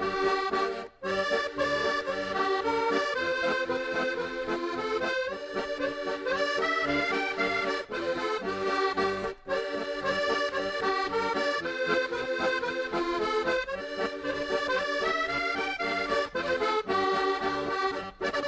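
Background music: a traditional tune played on an accordion, held chords with a melody moving in steps over a steady pulsing rhythm.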